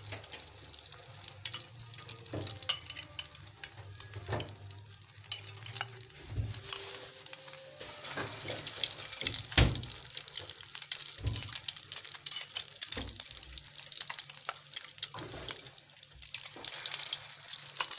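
Egg-coated potato cutlets shallow-frying in hot oil in a steel pan: steady sizzling with many small crackles and pops. A few knocks of a fork against the pan as more cutlets go in, the loudest about ten seconds in.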